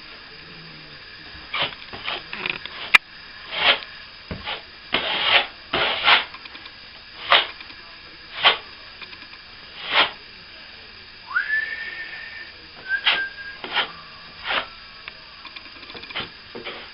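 Plastering trowel scraping cornice cement across a patch in irregular short strokes, with a person whistling two brief notes about two-thirds of the way through.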